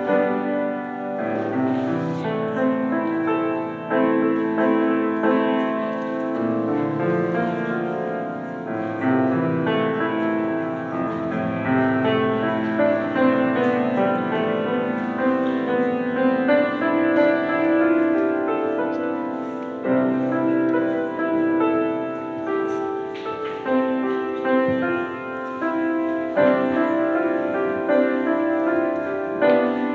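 Piano played live: a continuous piece, a melody over held chords and low notes, with no pauses.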